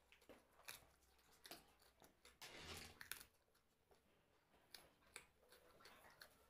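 Faint close-up chewing and crunching of snacks, with scattered small clicks and a brief louder crackly patch about two and a half seconds in.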